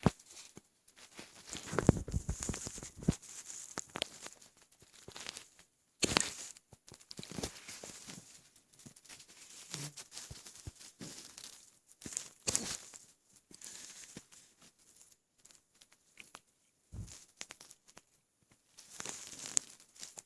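Hiccups from a stomach overfull with a gallon of milk: a sharp hiccup every few seconds, with irregular crackling, gurgling belly noises between them.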